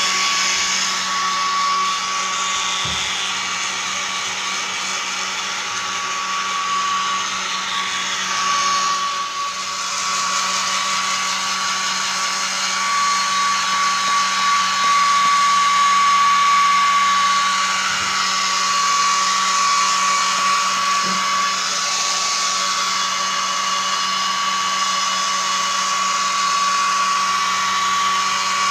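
Hand-held hair dryer running steadily, blowing air to dry a freshly bathed cat's wet fur. Its rush of air carries a steady high whine at one pitch and a low hum, and it swells a little as the dryer is moved about.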